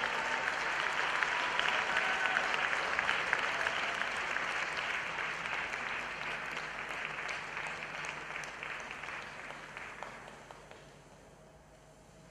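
Audience applauding, many hands clapping at once; the applause fades and dies away about ten seconds in.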